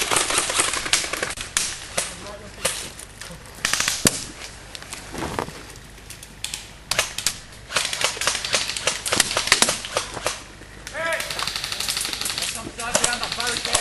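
Paintball markers firing rapid strings of shots, several guns overlapping, with players shouting.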